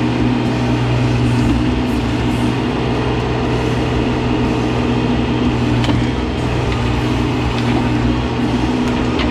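Mahindra eMax 20S sub-compact tractor's diesel engine running steadily, with a few light clicks and knocks over it.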